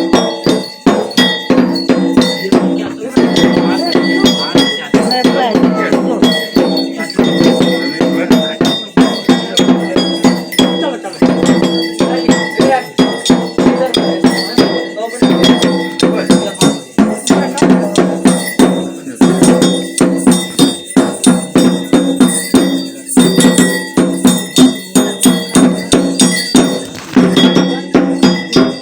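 Metal bells struck over and over in a fast, regular beat, their ringing tones overlapping without a break.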